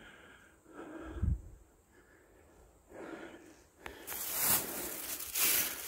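Footsteps through dry leaf litter and twigs on a forest floor: a few soft steps with a dull thump, then louder, denser rustling and crunching from about four seconds in.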